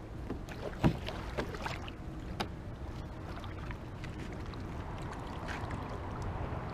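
Kayak paddle strokes through the water as the boat moves off from the bank, with a few sharp knocks in the first two and a half seconds, the loudest about a second in. A low rumble of wind on the microphone runs underneath.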